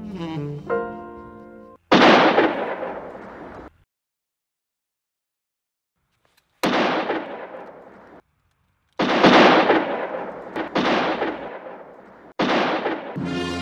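Five handgun shots, each a sharp crack with a long, dying tail, spread over about ten seconds with silences between them. A brass music cue ends just before the first shot, and music comes back in near the end.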